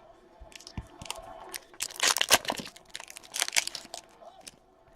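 Trading-card pack wrapper being torn open and crinkled by hand, in two loud rustling spells about two and three and a half seconds in.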